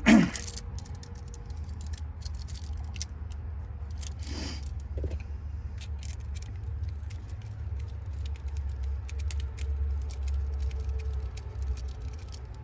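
Small metallic clicks and rattles of needle-nose pliers twisting wire nuts tight on outlet wires, over a steady low rumble.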